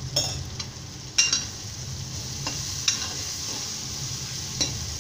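Onion-tomato masala sizzling in oil in a metal kadhai while a steel ladle stirs it, the ladle clinking and scraping against the pan several times, loudest a little over a second in.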